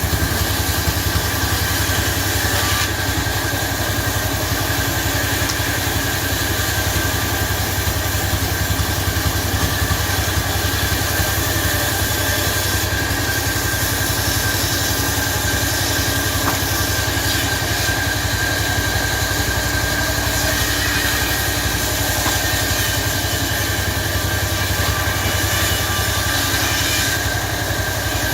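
Chainsaw engine running at a steady speed throughout, with no revving.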